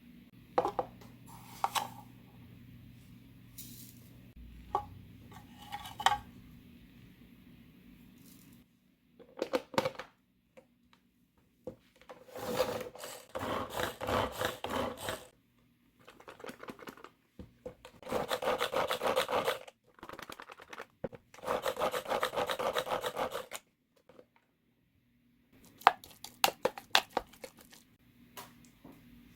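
Carrot being grated on a metal grater: several bursts of rapid rasping strokes, each lasting a few seconds, through the middle, with a few knocks and clicks near the start and near the end.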